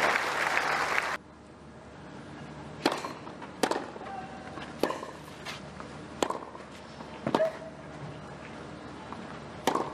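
Crowd applause that cuts off suddenly about a second in, then a tennis rally: six sharp racket-on-ball strikes, roughly a second apart, with a longer gap before the last.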